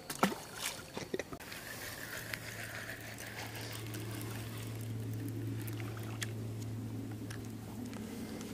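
A few sharp knocks and clicks, then a steady low hum for several seconds, like a distant motor.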